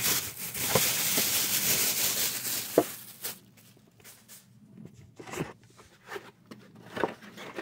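Rustling handling noise for about the first three seconds, then quieter, with a few scattered light clicks and knocks.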